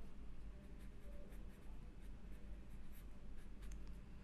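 A pen writing on paper: faint, irregular scratching strokes.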